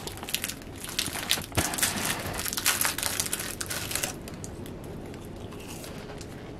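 Crinkling of a clear plastic wrapper as a pack of peanut butter sandwich crackers is opened and a cracker pulled out, in quick irregular crackles that die down about four seconds in.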